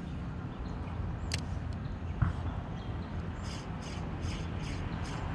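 Steady low rumble with a sharp click and a knock early on, then an even swishing about three times a second from about halfway: a Shimano Vanford 1000 spinning reel being cranked to retrieve a softlure.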